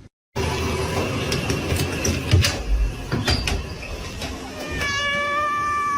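A cat's long, drawn-out meow begins about five seconds in, after a stretch of noisy clattering with several sharp clicks.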